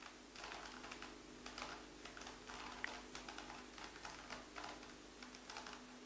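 Plastic 3x3 Rubik's Cube clicking as it is turned and handled, a quick irregular run of small plastic clicks, with a faint steady hum underneath.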